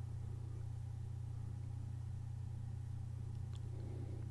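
A steady low hum with faint background hiss, unchanging throughout, and one faint tick a little past the middle.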